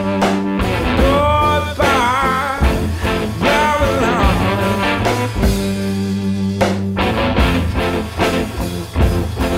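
Rock music with guitar playing as a soundtrack.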